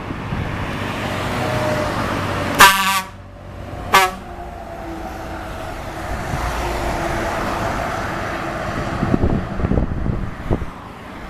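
Scania truck's air horn giving two loud blasts, a longer one and then a short one about a second later, over the noise of passing truck and road traffic.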